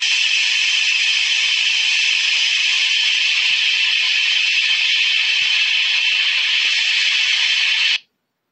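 Television static: a loud, steady hiss that starts abruptly and cuts off suddenly about eight seconds in.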